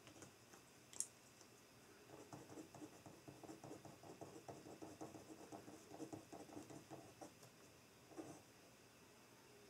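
Pen writing on notebook paper: a faint run of quick scratching strokes through the middle, with a single sharp tick shortly before and a short knock near the end.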